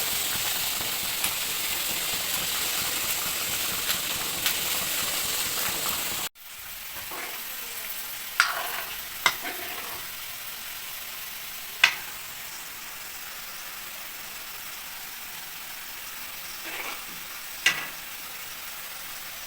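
Egg and potato curry sizzling in a pan as it is stirred. The sizzle cuts off abruptly about six seconds in and goes on more quietly, with a few sharp clinks of a utensil against the pan.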